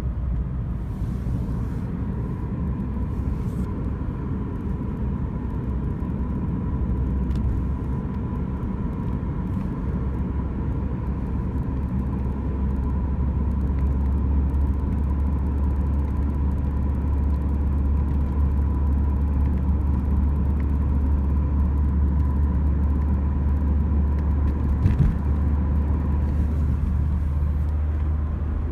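Steady road and drivetrain rumble inside a MINI's cabin while driving, with a faint steady whine, broken by a few short clicks and rattles, the sharpest about 25 seconds in. The rattle is an unidentified noise from the seat-belt housing or side window area.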